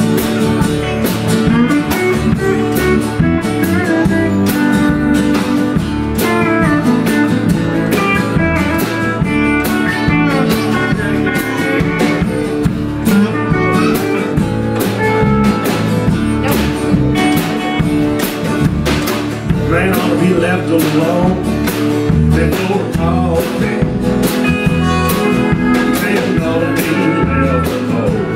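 Live country-blues band playing: steel guitar, acoustic guitar, electric bass and drums, with a steady beat and sliding steel-guitar notes.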